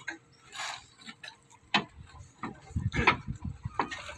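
Irregular knocks and clanks of work on steel pile cap formwork, a handful of separate strikes with the loudest cluster about three seconds in.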